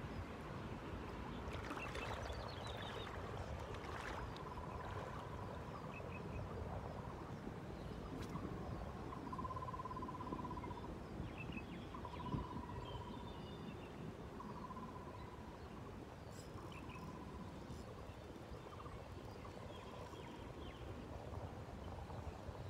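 A short trilling animal call, about a second long, repeats every couple of seconds over a steady outdoor rumble, with a few faint higher chirps.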